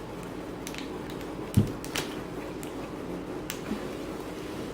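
Scattered sharp clicks and creaks of a laminated plastic planner cover being worked onto a thick planner's binding, with one louder thump about a second and a half in.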